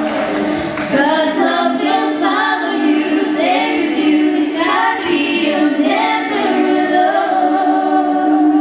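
Women singing a song together into microphones over a PA, with a steady held note sounding beneath the melody.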